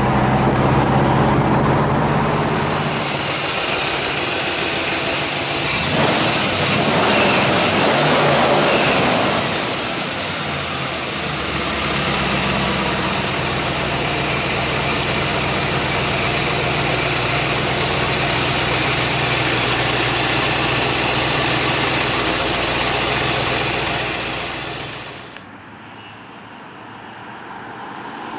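1962 Chevrolet Impala Super Sport's V8 engine running, heard from inside the car and then from the street. It drops suddenly to a quieter level near the end and grows louder again as the car comes closer.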